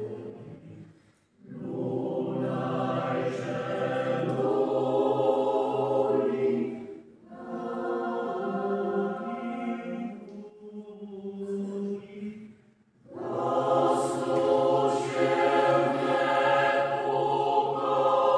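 Mixed choir of men's and women's voices singing in several parts, in sung phrases separated by three short breaks.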